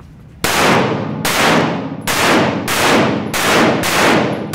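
Pistol shots fired in a steady string: six shots about two-thirds of a second apart, the first about half a second in. Each leaves a long echo off the concrete walls of an indoor range.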